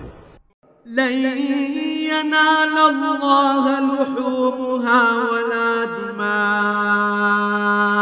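A male reciter chanting the Qur'an in Arabic in long, melodic held notes. It begins about a second in, after a brief pause.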